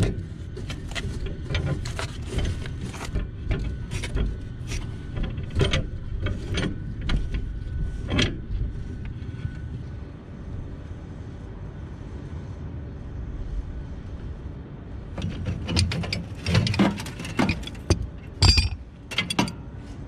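Threaded steel gas pipe being screwed together by hand and then tightened with a pipe wrench: scattered clicks and scrapes of metal on metal, a quieter stretch about halfway, and a cluster of sharp clicks near the end.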